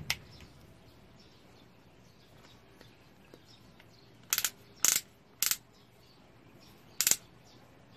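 The plastic torque-adjustment collar of a King Power X2002 16.8 V cordless drill clicking through its settings as it is turned by hand. There is one click at the start, three clicks about half a second apart a little past the middle, and one more near the end.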